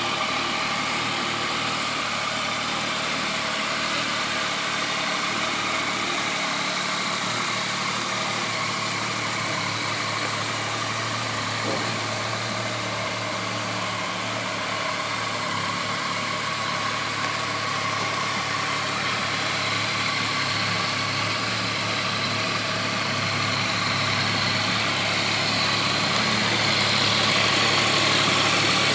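Yamaha MT-09's 847 cc three-cylinder engine idling steadily on the stock exhaust, a little louder near the end.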